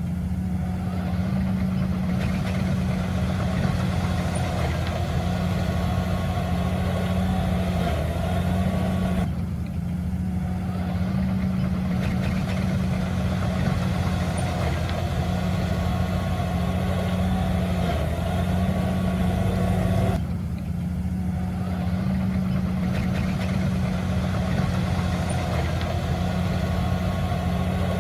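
Diesel engine of heavy earthmoving equipment running steadily with a deep, even drone. The upper part of the sound thins briefly about nine and twenty seconds in.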